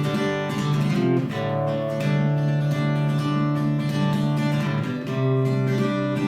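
Acoustic guitar strumming the instrumental intro to a country song, with chord changes about a second in and again near the end.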